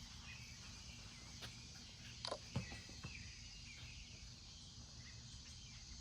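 Quiet background noise: a steady low hum and faint hiss, with a couple of faint short clicks a little over two seconds in.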